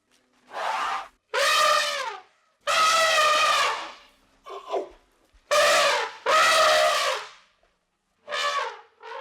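An animal calling over and over: about eight loud, drawn-out, pitched calls in quick succession, the pitch dropping at the end of each.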